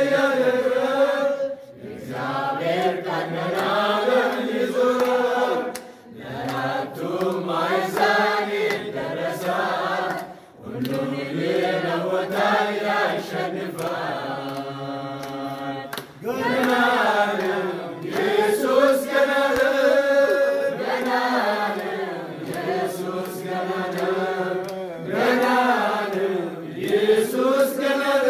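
A group of voices singing a hymn together in long held phrases with brief pauses between lines, with hand clapping.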